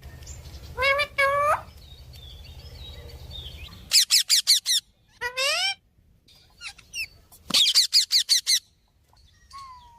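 Parrot calling: two rich squawks about a second in, then a quick run of sharp chirps, a single rising call, and a second quick run of chirps.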